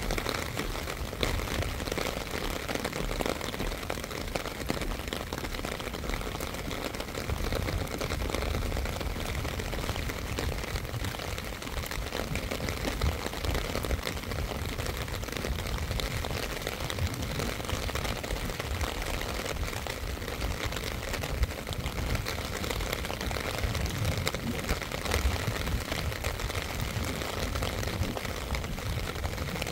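Steady rain falling, a dense patter of small drop ticks over an even hiss, with an uneven low rumble underneath.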